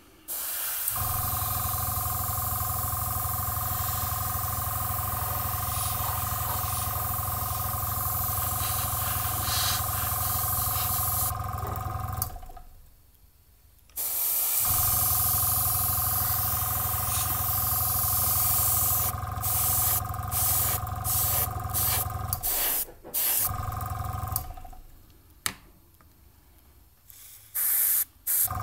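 An airbrush spraying, with its compressor's steady hum and two held tones under the hiss of the air. The air stops and starts several times, with short bursts before a pause of about two seconds around the middle and a longer pause near the end.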